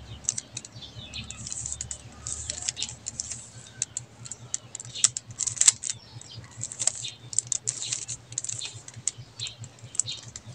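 3x3 Rubik's cube turned by hand: a run of irregular plastic clicks as its layers are twisted.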